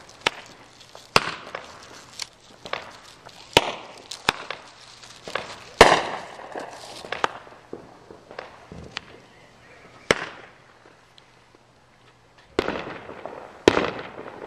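Aerial fireworks going off overhead: a string of sharp bangs from bursting shells, the loudest about six seconds in with a quick cluster of smaller pops after it. After a short lull near the end, a fresh volley of bangs follows.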